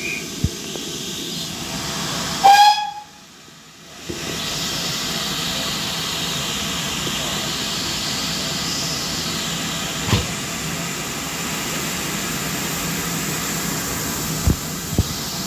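Steam locomotive with a steady hiss of escaping steam. About two and a half seconds in comes a short, loud whistle toot, after which the sound drops away for about a second. A few sharp clicks come later.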